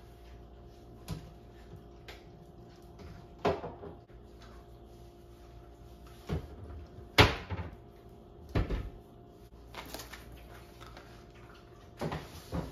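Kitchen cabinet doors opening and closing while cleaning products are taken out from under the sink: a string of separate knocks and clunks, the loudest about seven seconds in.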